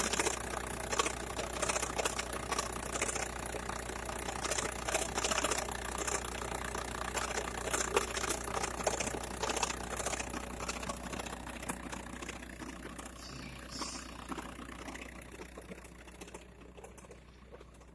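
Volkswagen Bora 1.9 TDI diesel idling with an irregular rattling knock from a failing dual-mass flywheel. The sound fades out over the last few seconds.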